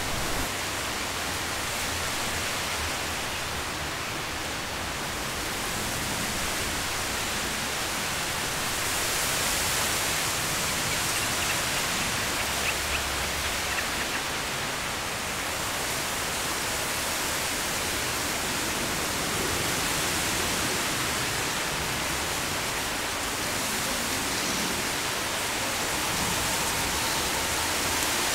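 Wind blowing through a reed bed: a steady, dense rustle of reeds that swells a little about ten seconds in.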